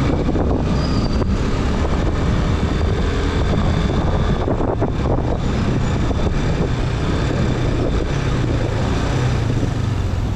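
Hero Glamour single-cylinder four-stroke motorcycle engine running steadily at slow city speed, heard from the rider's seat, with the mixed noise of surrounding street traffic.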